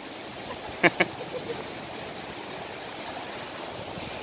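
Steady wash of sea surf breaking over shore rocks. About a second in, two short bursts of a man's laughter stand out above it.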